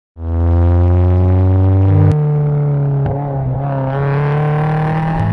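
Renault Clio 16V's 1.8-litre 16-valve four-cylinder engine, breathing through a full Group A exhaust, running hard on a race track. Its pitch holds steady, steps up sharply about two seconds in, wavers briefly, then climbs as the car accelerates near the end.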